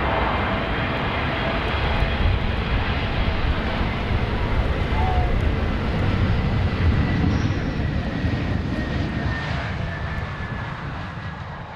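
Airbus A321neo jet engines and airflow during a landing: steady, loud jet noise with deep rumble as the airliner touches down and rolls along the runway, fading away near the end.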